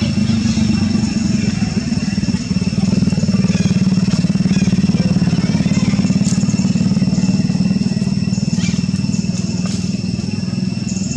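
An engine running steadily at a low, even pitch, with a thin high steady whine over it.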